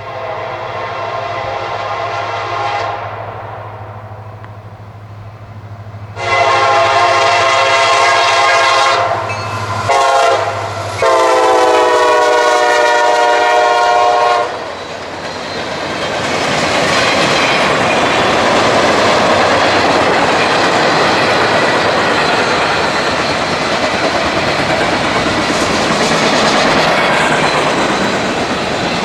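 Locomotive air horn sounding four blasts, long, long, short and long, the grade-crossing signal, over the low rumble of the engine. The train then passes, its wheels clacking over the rail joints.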